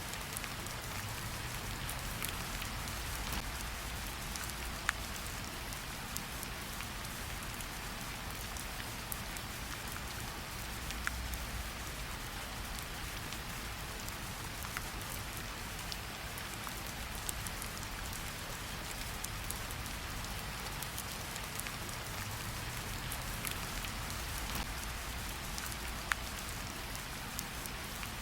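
Steady rainfall on a surface, an even hiss with individual drops ticking here and there and a low rumble underneath.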